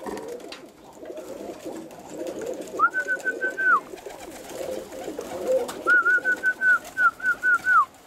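Roller pigeons cooing in a continuous low murmur, with a high whistled call to bring them in to feed: one whistle about three seconds in, then a longer pulsing run of whistle notes near the end, each run ending with a drop in pitch.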